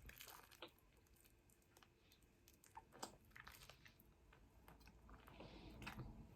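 Faint close-up eating sounds: a person chewing and biting food, with scattered soft crunches and wet mouth clicks, a little louder near the end.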